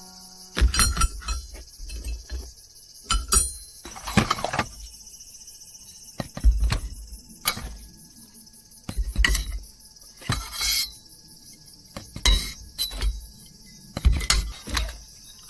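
Irregular clinks and knocks of camping gear being handled, about a dozen over the span, with dull thumps among them, over a steady high insect chorus.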